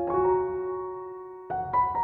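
Background piano music: a chord struck and left to fade, then new notes played about one and a half seconds in.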